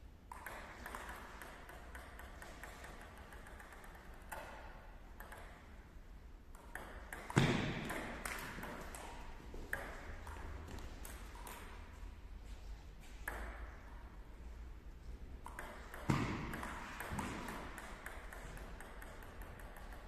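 Table tennis rallies: the plastic ball clicking off paddles and the table in quick, uneven succession, in a sports hall. Two louder, sharper impacts with a short ringing tail come about seven and sixteen seconds in.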